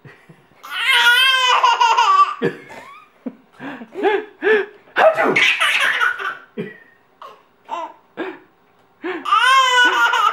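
Nine-month-old baby laughing at fake sneezes: a long high-pitched wavering laugh in the first seconds, then a run of short separate bursts, then another long laugh near the end.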